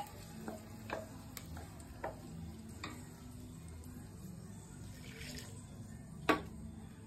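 A spoon scraping and knocking against a steel mixer-grinder jar as ground masala paste is emptied out, a series of short clinks with a sharp metal knock about six seconds in, over a steady low hum.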